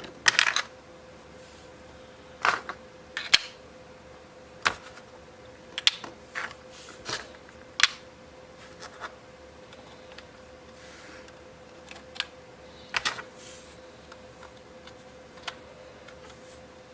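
3D-printed PETG puzzle pieces with embedded magnets clicking and clacking together as they are fitted back in place: irregular sharp clicks, sometimes in quick pairs, every second or so, over a faint steady hum.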